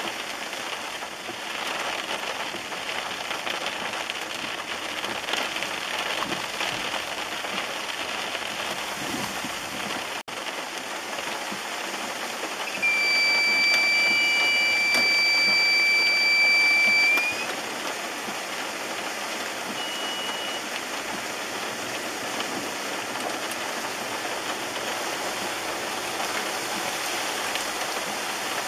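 Steady rain-like noise of water. About halfway through, a steady high-pitched tone sounds for about four seconds and then stops.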